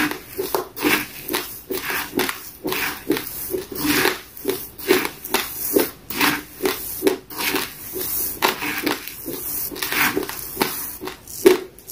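Raw basmati rice grains being chewed and crunched close to the microphone: a steady run of sharp crunches, about two to three a second.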